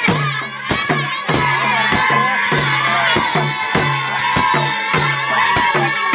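Nepali folk music played with a drum beating a steady rhythm of about three strokes a second, each stroke with a short low boom, under a crowd's voices and singing.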